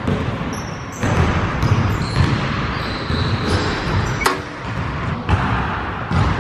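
Basketball bouncing on a hardwood gym floor, the thuds echoing around the hall, with a sharp knock about four seconds in.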